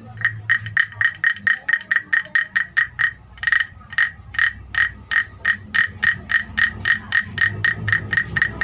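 Wooden frog guiro (croaking frog rasp) played by scraping a stick along its ridged back: a quick, even run of rasping croaks, about four a second, each with a ringing wooden tone.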